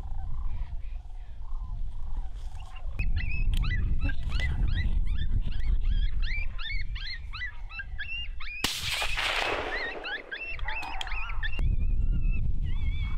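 Coyotes yipping in a fast, high-pitched chorus of short rising-and-falling calls, starting about three seconds in and turning into longer wavering howls near the end, over a low rumble. A loud rush of hiss cuts across the calls about two-thirds of the way through.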